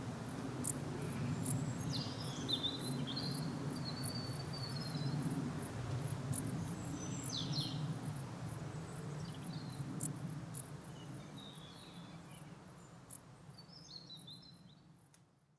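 Dark bush crickets (Pholidoptera griseoaptera) chirping: short, very high chirps repeated at irregular intervals. A bird calls a few times in the background over a steady low rumble, and the sound fades out near the end.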